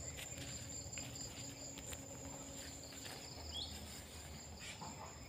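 Crickets and other insects giving a steady high drone, with a short rising chirp about three and a half seconds in and faint scuffing sounds.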